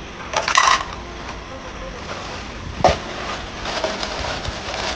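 Steady hiss of a single-burner cartridge gas camp stove running under a covered foil pot of simmering udon, with a sharp knock just before 3 seconds in.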